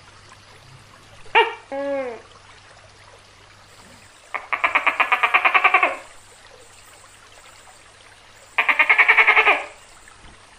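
Tokay gecko calling: one two-part "to-kay" call about a second and a half in, then two bursts of rapid rattling pulses, about ten a second, each lasting a second or so.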